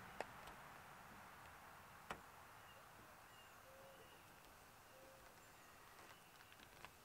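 Near silence: faint outdoor ambience with a few distant bird calls, including two short low hoots, and a couple of soft clicks early on.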